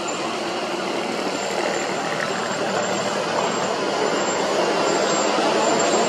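Heavy diesel engines of a Vögele road paver and the tipper truck feeding it, running steadily and growing gradually a little louder.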